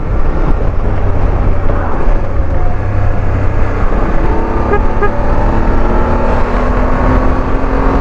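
BMW F 850 GS parallel-twin engine running at road speed under a heavy rumble of wind on the microphone. The engine note rises slowly in the second half as the bike speeds up.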